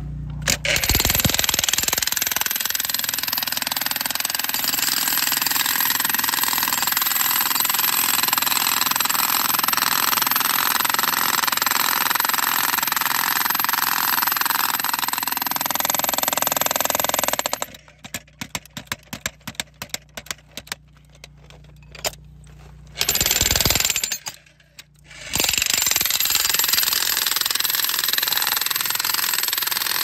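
Jackhammer chiselling into rock around geodes, running steadily for a long stretch. It then stops, gives a quick series of short stutters and a brief burst, and starts hammering again near the end.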